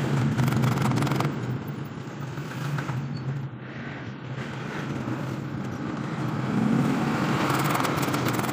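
A steady low engine-like hum runs throughout, with light metal clicks and scraping from a hand tool working on a radiator's top tank, most around the start and again near the end.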